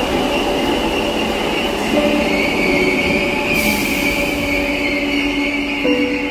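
Merseyrail Class 507 electric train braking into an underground station platform, running noise with steady high-pitched wheel and brake squeal that shifts in pitch as it slows to a stop. A short hiss comes about three and a half seconds in.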